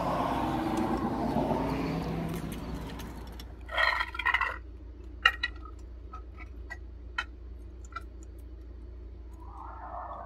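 A vehicle passing and fading away at first. Then a short rattle and a series of light metallic clicks and clinks as a hydraulic floor jack is set and its handle worked under the trailer's axle.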